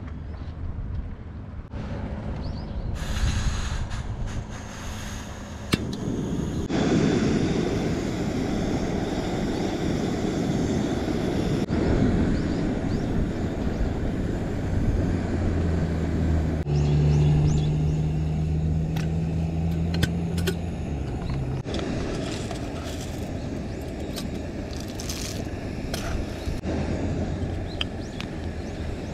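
Wind buffeting the microphone outdoors, mixed with small clicks and knocks of metal camping gear being handled. A steady low hum runs for several seconds midway.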